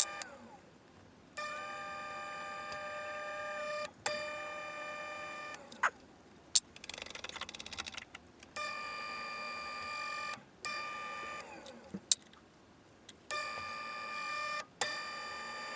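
Drill press bit drilling a blind hole into a steel press plate, cutting with a steady high whine that comes and goes in stretches of one to two seconds. Sharp clicks mark several of the stops and starts, with a short fast rattle near the middle.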